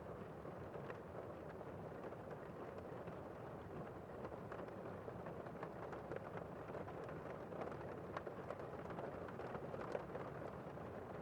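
Steady rain falling, a dense patter of drops over a constant hiss.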